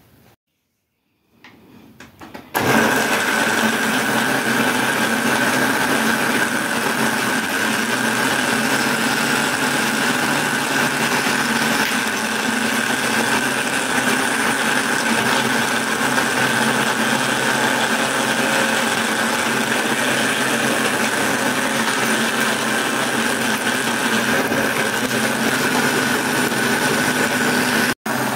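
Countertop blender motor running steadily at full speed, with a steady high whine, as it purees pineapple skin, spices and a little water into a seasoning paste. It cuts in suddenly about two and a half seconds in and drops out for a moment near the end.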